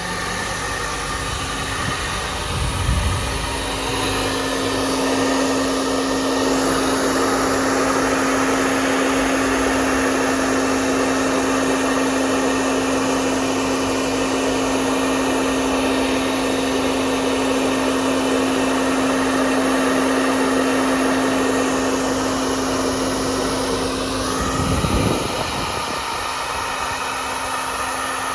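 Hair dryer running steadily: a dense rush of blown air over a steady motor hum. The hum settles in about three seconds in and dips briefly near the end before carrying on.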